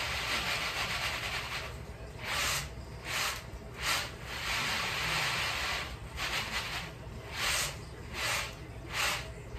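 Roasted peanuts being winnowed on a round woven bamboo tray: rasping swishes as the nuts and their loose papery skins slide and toss across the weave. Two long swishes, one at the start and one about four seconds in, are broken up by quicker short shakes about half a second apart.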